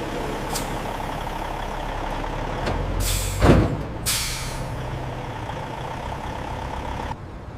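Heavy truck running, with two sharp air-brake hisses about three and four seconds in and a loud low thud between them; the running sound drops near the end.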